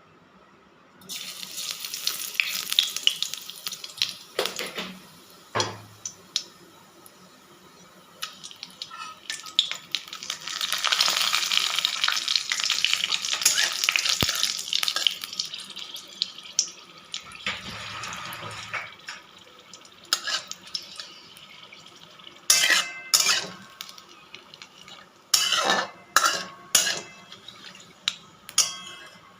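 Food sizzling in hot oil in a pan while being stirred, with the spatula scraping and clinking against the pan; a run of sharp knocks on the pan comes near the end.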